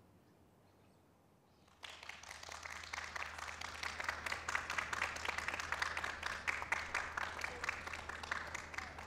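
Near silence for about two seconds, then an audience clapping, starting abruptly and carrying on as a dense crackle over a low steady hum.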